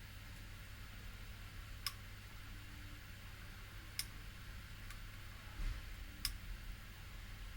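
Three small sharp clicks about two seconds apart, with a fainter one between the last two, from a fine tool working a bent pin in a CPU socket; a steady low electrical hum lies under them.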